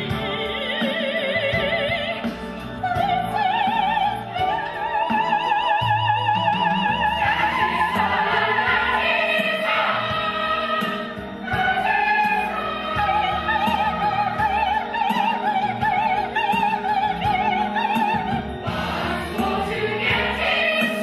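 Operatic singing with wide vibrato, more than one voice at times, over classical orchestral accompaniment.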